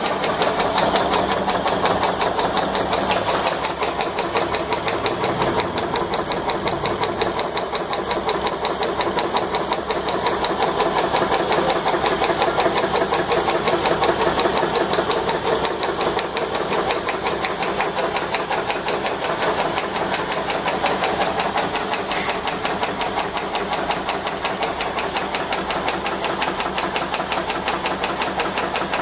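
Belt-driven reciprocating pump of a pressure washer running steadily, a loud mechanical clatter with a fast, even beat from its crosshead and piston strokes.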